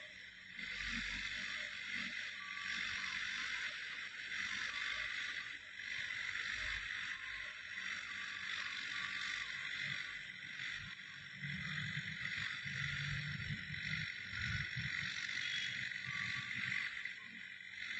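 Distant Caterpillar 120K2 motor grader working, its diesel engine a low rumble that grows louder for a few seconds in the middle, under a steady high hiss.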